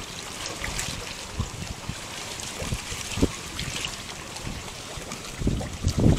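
Wind buffeting the microphone over water lapping and trickling, with irregular low thumps that come in a louder cluster near the end.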